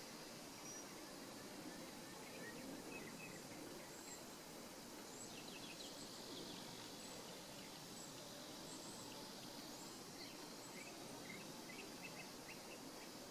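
Faint outdoor background hiss with scattered, distant bird chirps.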